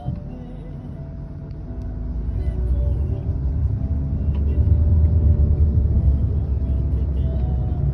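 Low engine and road rumble heard from inside a moving vehicle, growing louder over the first few seconds as it picks up speed and then holding steady.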